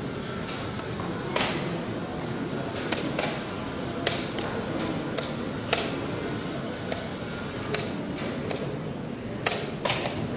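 Wooden chess pieces set down on a wooden board and chess clock buttons pressed in a fast blitz game: a dozen or so sharp, uneven clicks and knocks over steady room noise.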